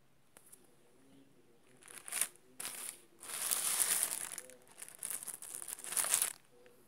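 Clear plastic packaging bag crinkling as it is picked up and handled, in a series of rustling bursts starting about two seconds in.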